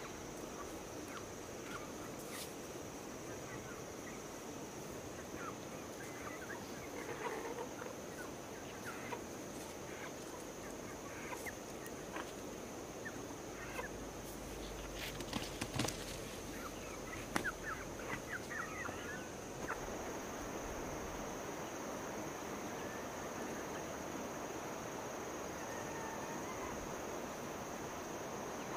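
Poultry calling in short, scattered calls, busiest about a third of the way in and again around two-thirds through. Under the calls runs a steady high-pitched drone with a hiss of background noise.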